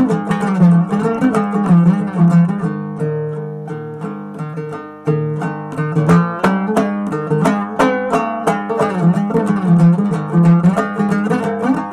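Background music on plucked string instruments: a quick run of picked notes over a held low tone, easing off for a moment and coming back in sharply about five seconds in.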